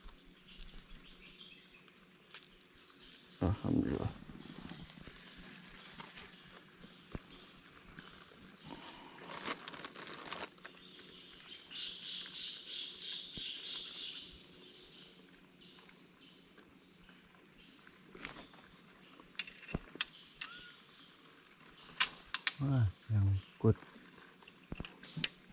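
Steady, high-pitched drone of an insect chorus. A few short, louder low sounds break in about four seconds in and again near the end.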